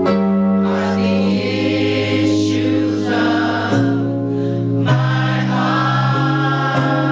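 Gospel choir of adults and children singing together, holding long chords that shift to new notes several times.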